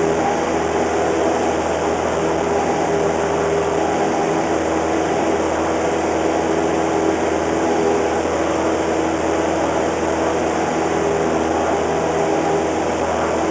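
Cessna 172's piston engine and propeller running steadily in flight, heard from inside the cabin as an even drone.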